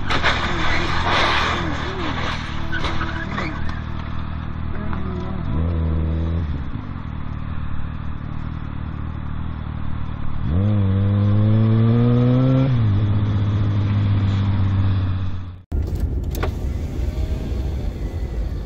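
Motorcycle engine running over wind and road noise, revving up briefly about five seconds in and again, for longer, around ten to twelve seconds in. About three seconds before the end it cuts off suddenly and a steady low car road rumble takes over.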